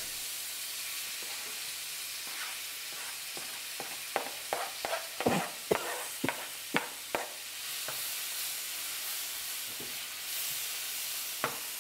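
Chopped tomatoes, onion and scallion sautéing in hot coconut oil and curry powder in a nonstick frying pan, a steady sizzle. A spatula knocks and scrapes against the cutting board and pan in a quick run of clicks around the middle, with a few more near the end.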